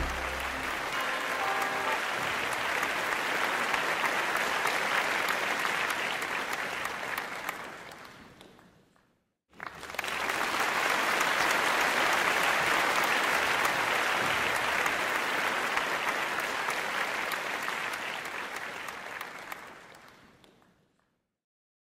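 Crowd applause that fades away, breaks off briefly, then starts again abruptly about ten seconds in and fades out near the end.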